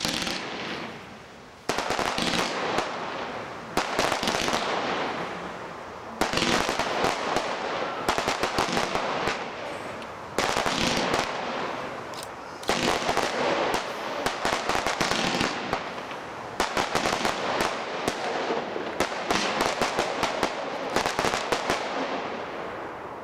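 Fireworks cake (compound battery) firing its shots: a hiss at first, then waves of rapid, sharp pops every two to four seconds, dying away near the end.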